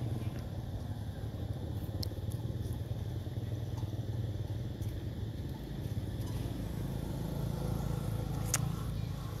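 Steady low rumble of an engine running, with a few faint sharp clicks, the clearest about eight and a half seconds in.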